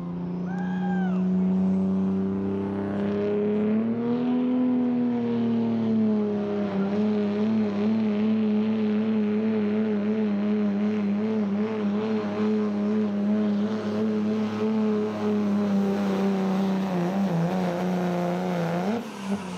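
Dodge Ram pickup's diesel engine running hard under load as it drags a pulling sled. The pitch climbs about four seconds in, then holds steady with a wavering rise and fall. Near the end it dips, then briefly revs up.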